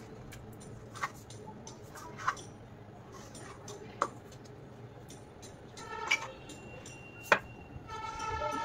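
Scattered sharp clicks and taps of hands and a stainless steel bowl on a plastic cutting board as chopped onion and green chilli are gathered into the bowl; the loudest tap comes about seven seconds in. A drawn-out pitched call sounds briefly about six seconds in and again near the end.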